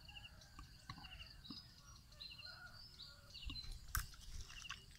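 Faint outdoor ambience of small birds chirping and trilling, with soft scattered rustles and knocks and a single sharp snap about four seconds in.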